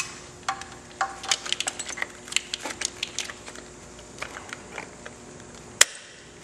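Hands feeding a wiring harness and its plastic connectors through a motorcycle engine bay: a run of small, irregular plastic clicks and rustles as the wires are pushed along, with one sharp click near the end.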